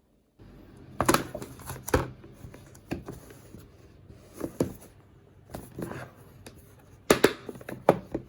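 Objects being handled by hand: irregular clicks and knocks with crinkling in between, over a low steady hum.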